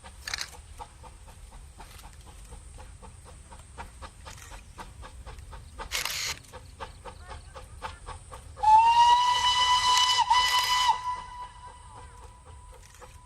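Steam locomotive whistle sounding one blast of about two and a half seconds: a single high note over a rush of steam, about two-thirds of the way in. A shorter burst of hiss comes a few seconds before it.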